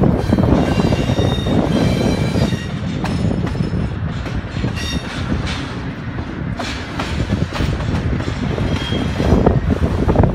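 Double-stack intermodal container train's well cars rolling past, a steady rumble of steel wheels on rail. Wheel clicks run through it, and a few brief high-pitched wheel squeals come through in the first half and again near the end.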